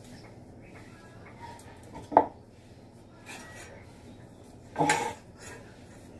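Metal kitchen utensils clanking on a floor-level kitchen surface: one sharp clank with a short ring about two seconds in, and a longer metal clatter about five seconds in.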